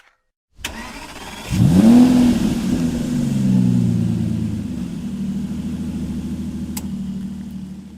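A car engine sound effect: the engine revs up sharply about a second and a half in, then holds a steady note that slowly sinks and fades away.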